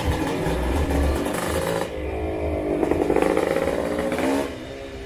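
Small motorcycles passing close by on a street, their engines rising in pitch and then dropping. They are loudest a little after halfway through and fade near the end.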